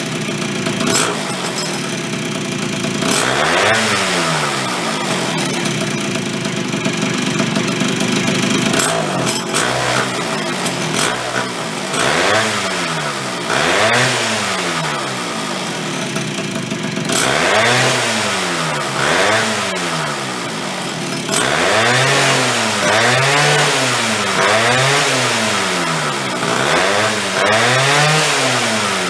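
Late-1970s Chrysler Sno-Runner's two-stroke engine running and being blipped with the throttle again and again, its pitch climbing and dropping back each time, with a quicker run of about five revs near the end.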